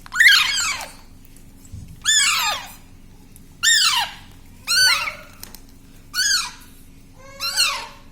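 Baby parrot giving loud, shrill begging calls while being hand-fed: six short squeals, each arching up and falling in pitch, about one every second and a half.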